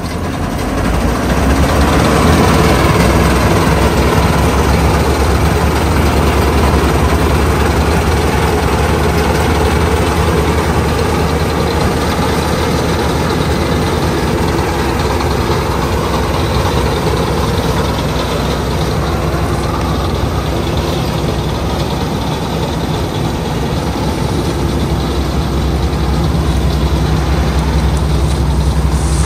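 Heavy diesel farm-machine engine running steadily, getting louder over the first two seconds.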